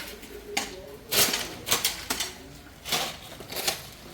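A series of irregular sharp clinks and knocks, about five, spaced half a second to a second apart, with a faint voice early on.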